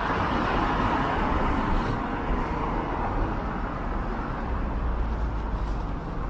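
City street traffic: passing vehicle tyre and engine noise swells over the first few seconds and then eases, over a steady low rumble.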